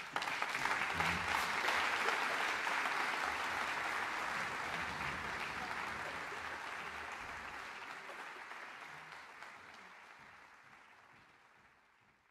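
Audience applause breaking out as the wind ensemble's piece ends, dense and loudest in the first few seconds, then fading away steadily to silence.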